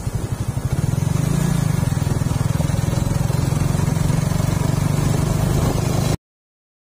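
Suzuki Raider 150 Fi's single-cylinder four-stroke engine running while the motorcycle is ridden along; it grows louder about a second in, holds steady, then the sound cuts off suddenly near the end.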